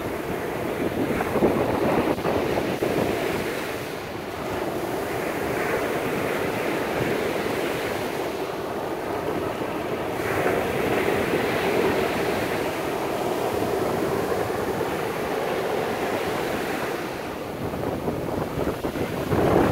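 Small waves washing up the sand and drawing back in shallow water, a steady hiss that swells and eases slowly, with some wind buffeting the microphone.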